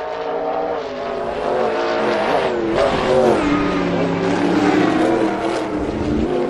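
Racing car engine running at high revs, its pitch dipping and climbing again a couple of times.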